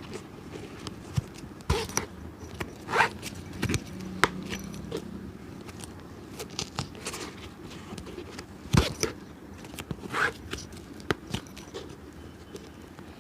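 Hand tools on a leather shoe during a shoe restoration: irregular scraping strokes and sharp clicks, the loudest click a little under nine seconds in.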